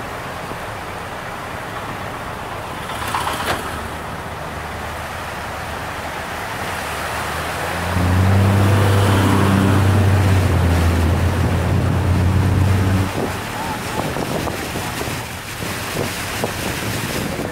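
Floodwater rushing across a road surface, a steady hiss. About eight seconds in, a motor's loud, steady hum joins it for about five seconds, then stops.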